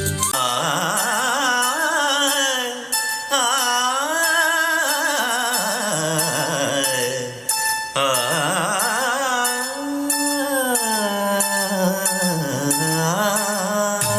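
A Boat Stone 1500 Bluetooth speaker playing an Indian film-song passage without lyrics: a wavering melodic lead line with heavy vibrato over accompaniment. It dips briefly about three seconds in and again near the middle.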